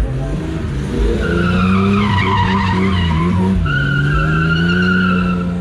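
Chevrolet Opala engine held at high revs, dipping briefly about three and a half seconds in and climbing again, with tyres squealing over it in a wavering high whine.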